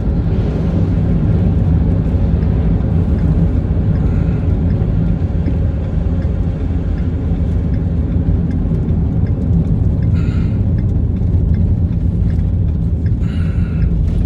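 A moving vehicle heard from inside the cabin: a steady low engine and road hum with a constant drone.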